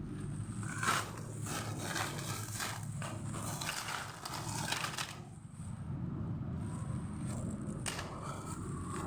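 Packaging and plastic parts being handled and unwrapped, crinkling and scraping irregularly, with a single sharp click near the end.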